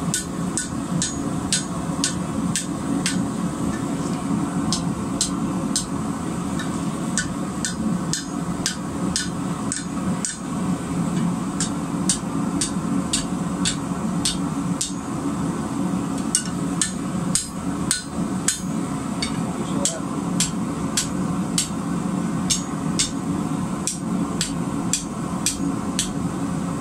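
Hand hammer striking red-hot steel on an anvil, forging a small scroll on the end of a bar, at about two sharp blows a second in runs with short pauses. The lit forge runs steadily underneath.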